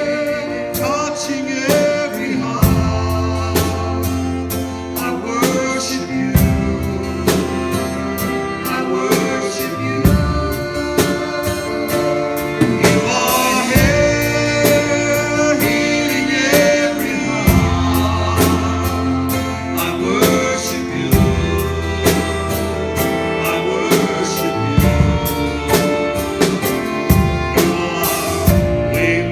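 Worship song with singing over a band of drums, bass and guitar, a steady beat throughout.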